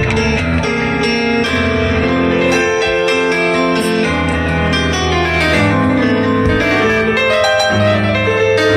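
Keyboard played in sustained piano-style chords and runs through the PA during a band's soundcheck.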